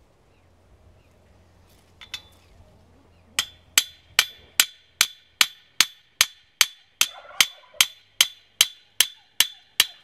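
Hammer driving a nail into a wooden fence post: a couple of light taps, then from about three and a half seconds in a steady run of blows, about two and a half a second, each with a bright metallic ring.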